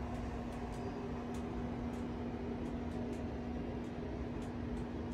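Butter sizzling around crab-stuffed lobster tails in a cast iron skillet: a steady hiss with faint scattered pops, over a steady low hum.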